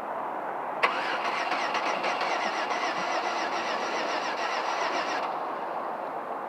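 2005 Chevrolet Venture's starter cranking its 3.4-litre V6 for about four and a half seconds with an even rhythm, then stopping abruptly without the engine catching: a crank-but-no-start condition. A sharp click as the starter engages begins the cranking.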